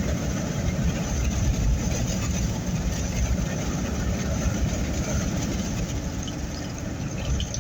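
Steady low rumble of road, engine and wind noise heard from inside a vehicle's cabin while driving through a strong windstorm.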